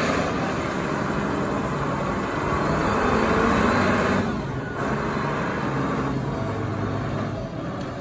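Large Caterpillar pneumatic-tyre forklift's engine running steadily as the truck drives and turns, its pitch shifting slightly about halfway through.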